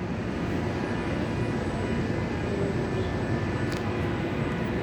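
Steady outdoor city background noise: an even low rumble with faint steady tones and no distinct events.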